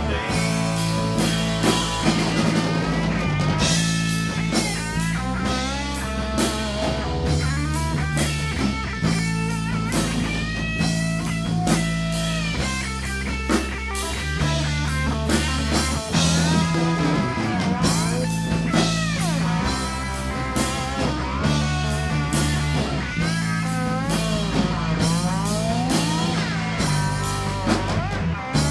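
Rock band playing an instrumental break: an electric guitar lead full of bent, sliding notes over bass guitar and a drum kit.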